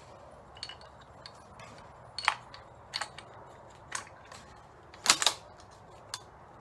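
Several sharp metallic clicks and knocks about a second apart, from handling a Ruger American Go Wild bolt-action rifle at the bench. The loudest is a quick double click about five seconds in.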